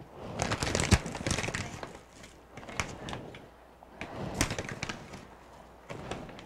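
Scattered light taps, scrapes and rustles of a measuring spoon scooping granulated sweetener out of a plastic bag and tipping it into a mixing bowl.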